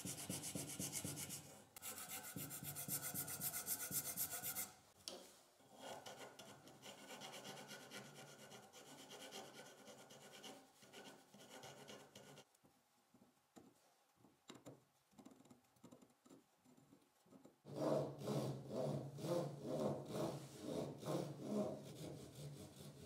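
Hand sanding inside the slot of a small wooden disc: an abrasive strip rubbed quickly back and forth, making a steady rhythmic rasp. The strokes fade to faint about halfway through, then come back louder and slower, about three a second, for the last five seconds.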